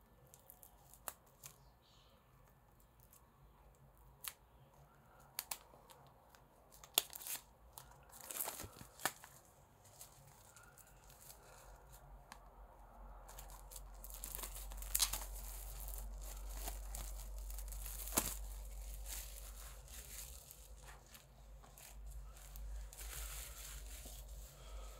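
Plastic shrink-wrap being torn open and peeled off an album, crinkling. There are a few sharp tears and clicks in the first half, then a longer stretch of continuous crinkling that lasts until near the end.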